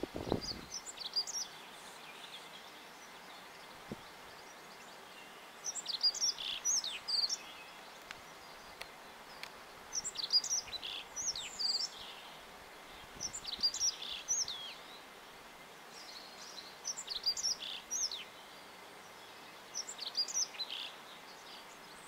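Male reed bunting singing a short phrase of quick high notes, repeated about every three to four seconds, six times, over a faint steady background hiss.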